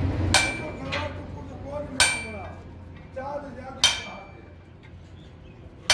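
Hand hammer striking steel tooling on a screw puller clamped to a truck tie rod end: sharp, ringing metal blows about every two seconds.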